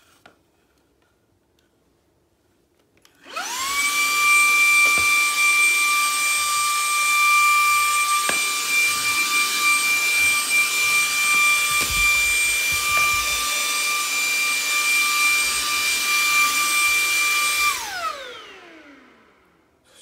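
Vacuum cleaner switched on about three seconds in: its motor spins up to a steady high whine over a rushing hiss and runs for about fourteen seconds. Near the end it is switched off and winds down with a falling whine.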